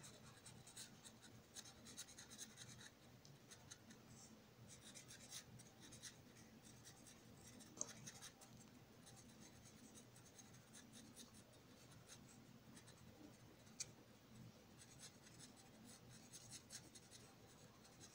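Faint scratching of an orange felt-tip pen on sketchbook paper as it colours in with quick short strokes. Two slightly sharper ticks stand out, one a little before the middle and one later on.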